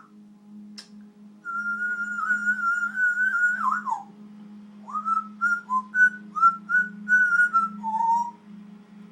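African grey parrot whistling: one long wavering note that ends in a falling slide, then a quick string of short whistled notes, over a steady low hum.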